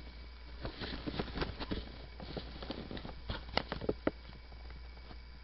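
A cat moving right against the camera: irregular soft taps, clicks and rustles, with two sharper clicks about three and a half and four seconds in.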